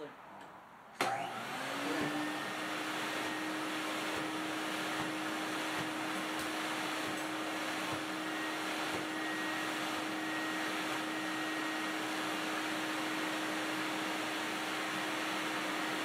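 Vintage Electrolux Ultra Lux XL canister vacuum cleaner switched on about a second in: its motor spins up with a rising hum, then runs steadily while the hose's cleaning tool is worked over a shag rug.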